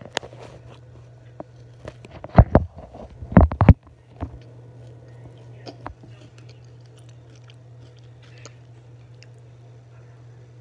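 A person chewing food close to the microphone, with several loud crunches in the first few seconds, then quieter chewing. A steady low hum runs underneath.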